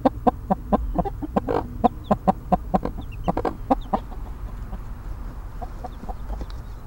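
Mother hen clucking rapidly to her chicks, about three or four short clucks a second, with faint chick peeps among them. The clucking stops about four seconds in, and a few softer clucks follow.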